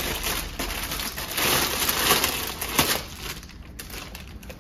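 Thin clear plastic bag crinkling and rustling as a gift is pulled out of it, a dense crackle that fades after about three seconds.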